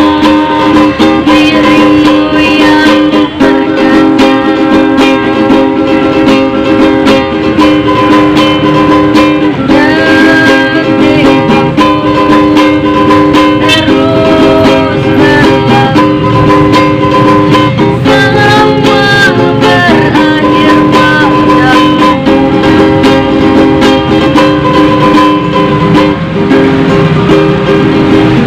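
Ukulele strummed in quick, steady chords as the accompaniment to a song, with a melody line gliding over the chords in places.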